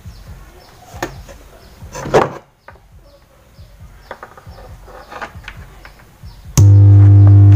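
A few faint knocks and handling noises, then a loud, steady low drone with overtones that starts abruptly near the end.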